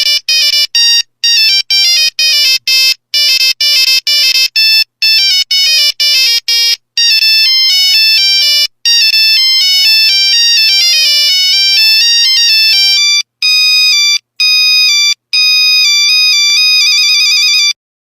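Old Nokia mobile phone ringtones playing: bright, beeping electronic melodies of quick separate notes. From about 13 seconds the tune is sparser and ends in a fast trill.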